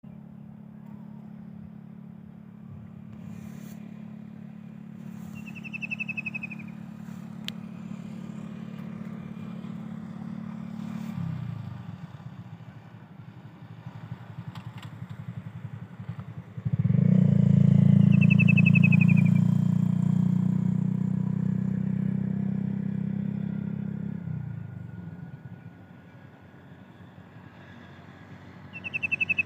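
A kingfisher gives a short, rapid, slightly falling trilled call three times, spaced well apart. Under it runs the steady low drone of a motor vehicle's engine, which fades out partway through and comes back louder for several seconds.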